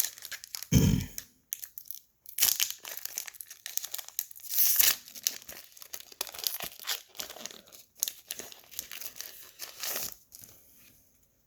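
Foil Pokémon TCG booster pack being torn open and its wrapper crinkled: an irregular run of ripping and crackling, with a low thump about a second in.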